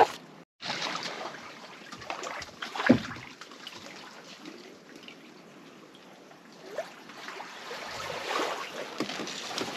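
Water lapping and trickling against a boat hull, with a single knock about three seconds in.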